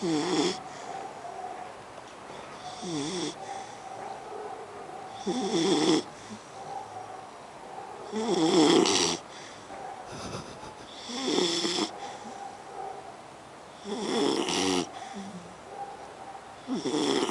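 Beagle puppy snoring in its sleep, one snore about every three seconds, each lasting under a second.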